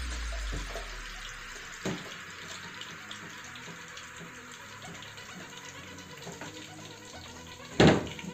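Pot of water with sausages simmering on a lit gas burner, a steady watery hiss. A light knock about two seconds in and a sharper, louder knock near the end.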